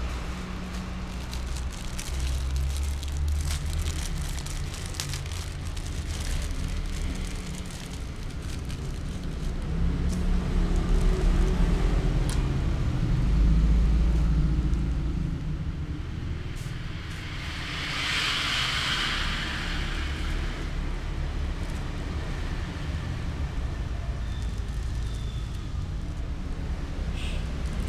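Portable gas stove burning under a pot of noodles simmering in water: a steady low rumble with scattered crackles and pops. A plastic seasoning sachet rustles for about three seconds a little past the middle.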